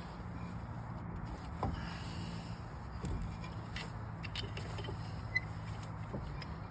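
Steady low hum with a few scattered light clicks and knocks from hand work on a brake caliper, one sharp tick about five seconds in.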